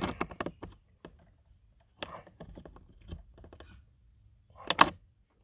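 Small irregular metallic clicks and ticks as needle-nose pliers twist a steel heater control cable, with a quick run of sharp, louder clicks near the end.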